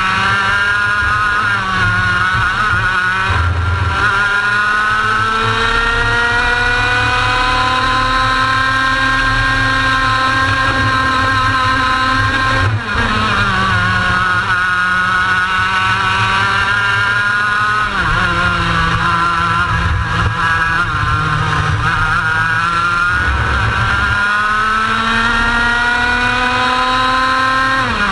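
Two-stroke racing kart engine heard at close range from onboard, its note climbing steadily down the straights. The note drops sharply as the driver lifts for corners: about halfway through, again a few seconds later, and at the very end. Low wind buffeting rumbles underneath.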